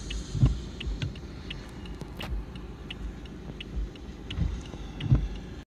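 Car driving on a wet road, heard from inside the cabin: a steady low road-and-engine rumble with scattered light ticks and a few dull thumps.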